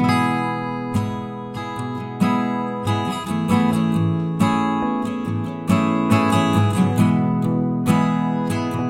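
Background music: a strummed guitar, chords struck every half second to a second.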